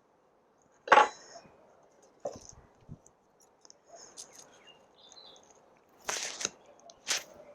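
Handling noises as succulent offsets are cut off and handled: a sharp clack about a second in, a few softer knocks, then rustling and scraping near the end.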